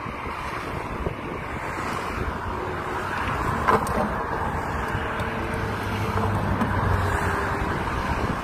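Road traffic with wind buffeting the microphone: a steady rush of passing vehicles that slowly grows louder, with a low engine hum in the latter half. One sharp knock a little under four seconds in.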